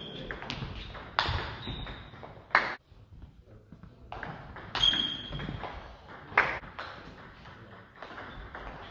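Table tennis rally: celluloid-type ball struck by rackets and bouncing on the table, a series of sharp clicks, some with a short high ping.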